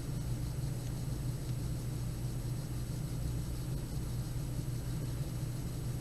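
Steady low hum of a running motor or appliance, even and unchanging, with a faint hiss above it.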